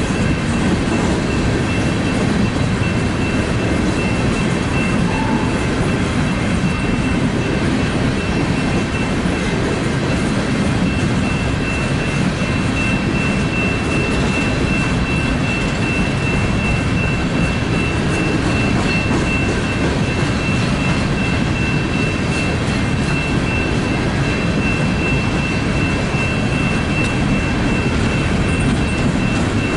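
Empty coal cars of a BNSF coal train rolling steadily past: a continuous rumble of steel wheels on rail, with a thin high whine over it.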